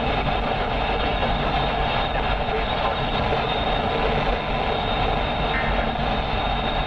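Steady road and engine noise inside a moving car, an even rumble and hiss without breaks.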